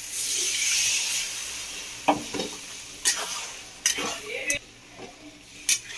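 A metal spatula stirs a wet ground paste into spiced peas frying in a metal kadai. A loud sizzle fills the first second or so, then the spatula knocks and scrapes against the pan about five times.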